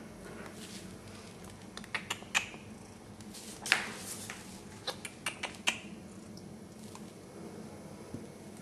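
A cat playing with a small hard toy: irregular sharp clicks and taps as the toy and claws knock against the surface, loudest near the middle and thinning out in the last few seconds, over a faint steady hum.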